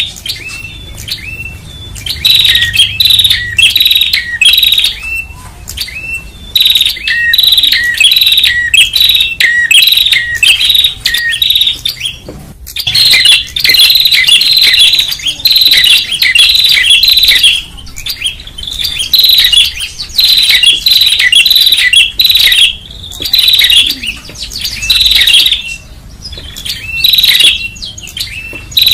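Prenjak (tailorbird) calls from a bird-lure recording: loud, busy chattering of short high notes, several a second, in near-continuous runs with a brief break about halfway.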